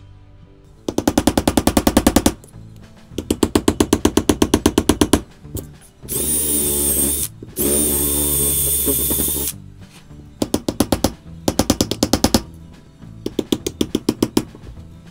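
Rapid runs of hammer blows, about ten a second, on a driver being forced into the wooden wedge in a sledgehammer head's eye, in five bursts. In the middle a cordless drill bores into the wood for about three seconds with a high whine, stopping briefly once.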